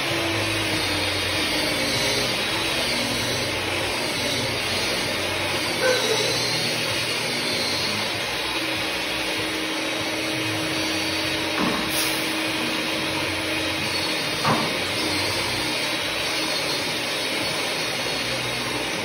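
Steady rushing noise, like a machine or blower running, with three light knocks spread through it.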